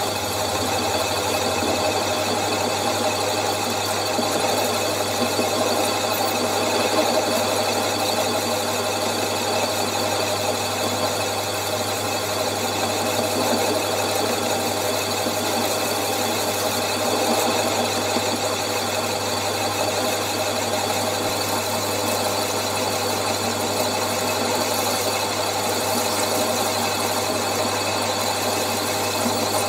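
Myford lathe running steadily while a boring bar turning between centres cuts the bore of a mild steel cylinder block, hand-fed, with a constant machining noise.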